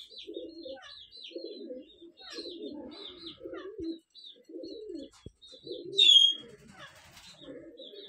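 Doves cooing over and over in an aviary, with birds chirping high above them. About six seconds in comes one loud, sharp bird call.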